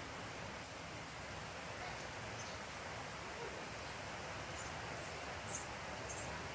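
Steady rain hiss, even and unbroken, with a few faint high chirps in the second half.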